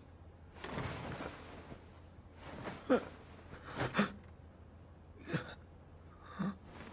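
Voices breathing and gasping: a long breathy exhale, then several short gasps and sighs with a brief rise or fall in pitch, spaced about a second apart.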